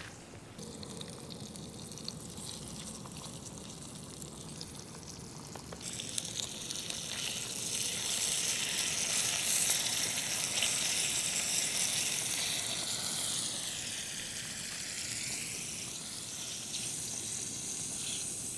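Pork slices sizzling in hot fat in a small stainless-steel frying pan. The sizzle turns louder and brighter about six seconds in, then slowly eases toward the end.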